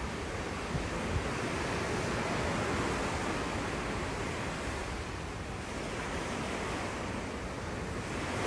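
Steady rush of churning sea water in a moving cruise ship's wake along the hull, mixed with wind.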